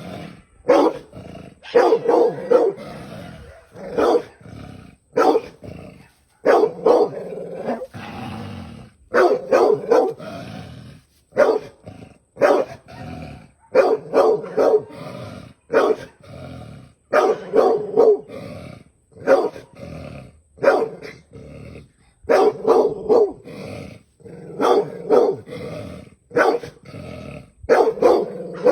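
A dog barking again and again in quick clusters of one to three barks, with lower growling between the clusters.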